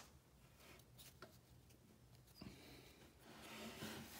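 Near silence, with faint rubbing of a stack of baseball cards handled between the fingers in the second half.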